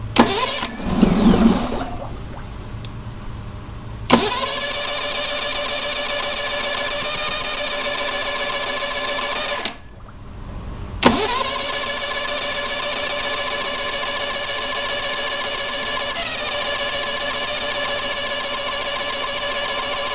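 Tohatsu 20 hp four-stroke fuel-injected outboard (MFS20E) starting and running steadily for about five seconds, then stalling. It is restarted about a second later and runs for about nine seconds before cutting out again. It will not stay running, which the owner puts down to the fuel system not yet being bled through.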